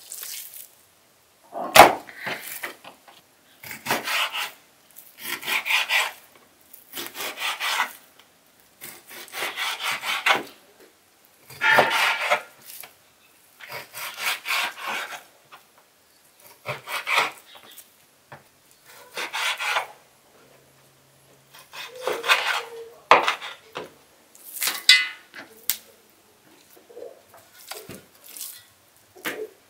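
A kitchen knife sawing through raw beef onto a wooden cutting board: about a dozen scraping strokes, each roughly a second long, coming every two seconds or so.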